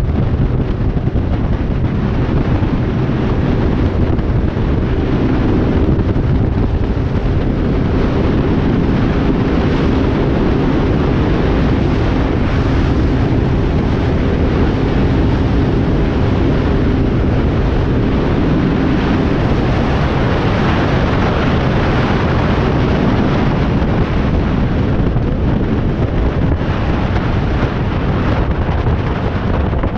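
Wind noise buffeting the microphone of a motorcycle-mounted camera at road speed, over the steady running of the motorcycle engine held at an even pace.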